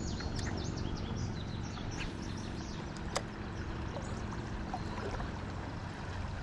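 Steady rush of flowing river water, with a low rumble underneath. Short high chirps come in the first couple of seconds, and there is a single click about three seconds in.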